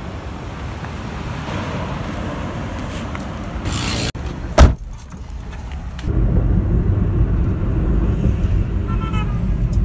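Street noise, then a car door handle pulled with one loud sharp click as the door opens. This is followed by the steady low rumble of the car driving, heard from inside the cabin.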